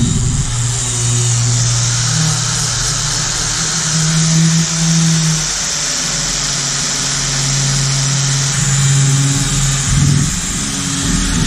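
Circular saw with a carbide-tipped blade cutting through aluminum plate: a steady, loud cutting noise with a motor hum that shifts in pitch as the blade is worked along the cut.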